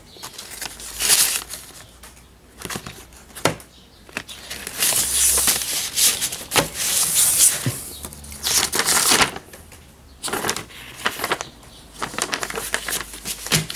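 Paper and envelope rustling and crinkling in a string of bursts as a letter is pulled out of a padded envelope and unfolded, with a few short clicks.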